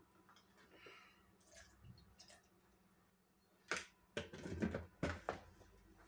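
Plastic clicks and knocks from a Tupperware pull-cord food chopper's lid being handled and fitted back on: faint light handling sounds at first, then a sharp click a little past the middle, followed by a quick run of smaller clicks.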